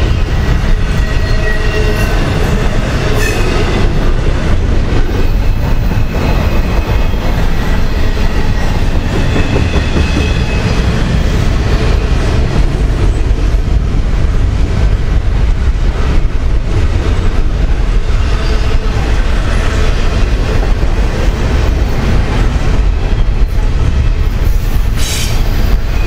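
Double-stack intermodal well cars of a long freight train rolling past: a loud, steady rumble of steel wheels on rail with continual clattering.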